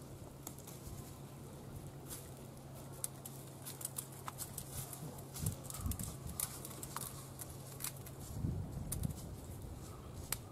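Sika deer foraging with its muzzle and hooves in dry fallen leaves and pine needles: scattered crisp crackles and rustles of the leaf litter, with a few soft low thuds near the end.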